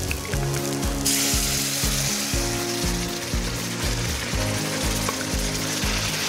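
Loud sizzling that starts suddenly about a second in, as pressure-cooked chicken and its liquid are poured from a pressure cooker into a hot pan of fried onion-tomato masala. Background music with a steady beat plays throughout.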